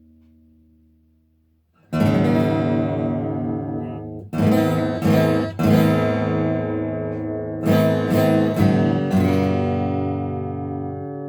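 Epiphone Hummingbird acoustic guitar with a thermally aged spruce top and rosewood back and sides, strummed: a faint ring fades out, a chord sounds about two seconds in, then several quick strums follow in two groups, each chord left to ring.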